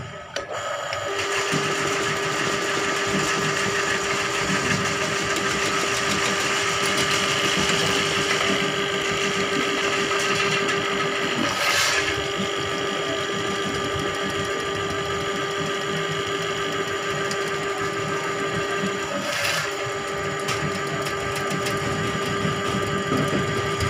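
Electric drain-cleaning machine running, its motor humming steadily as the spiral snake cable spins in a clogged drain pipe. The hum settles in about a second in and breaks off briefly twice, about halfway and a few seconds before the end.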